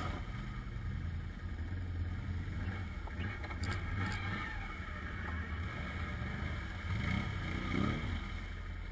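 Quad bike (ATV) engine running at low speed, picking up revs briefly near the end.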